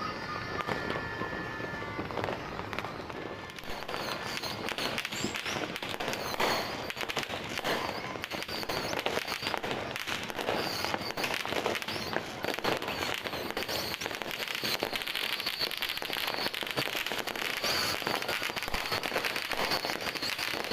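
New Year's fireworks and firecrackers going off continuously, a dense run of overlapping bangs and crackles that thickens a few seconds in.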